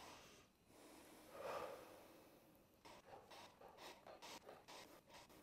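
Faint, deep breathing of a cyclic hyperventilation drill: a louder breath about a second and a half in, then a quick run of short breaths, about three a second, in the second half.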